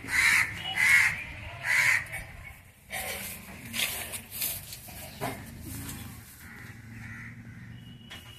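A crow cawing three times, about a second apart, harsh and loud, followed by a few softer knocks.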